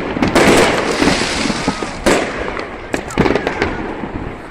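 Fireworks display: aerial shells bursting with dense, continuous crackling, and a few sharper bangs standing out, one about two seconds in and another just after three seconds.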